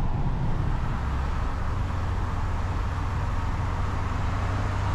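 Steady engine and road noise inside a camper van's cab while driving at highway speed, with a constant low hum underneath.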